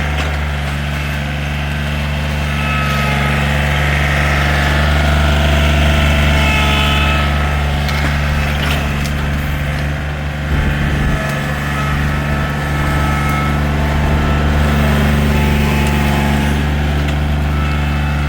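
A large engine running steadily at an even speed, a deep constant hum, with a short uneven patch of knocks about ten seconds in.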